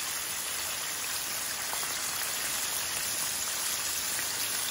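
Breaded chicken pieces deep-frying in a pan of hot oil, making a steady, even sizzle.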